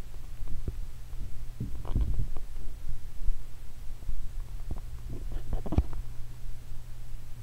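Muffled underwater sound picked up by a waterproof camera's microphone submerged in bathwater: a steady low hum with irregular dull knocks and rumbles, in a cluster about two seconds in and another between five and six seconds, as the camera is moved under the water.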